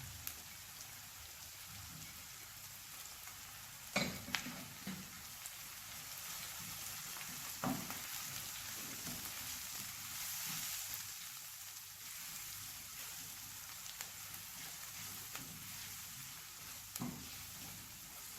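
Onion frying in oil in a pan with a steady sizzle. A few sharp knocks of a spoon against the pan come a few seconds in, near the middle and near the end.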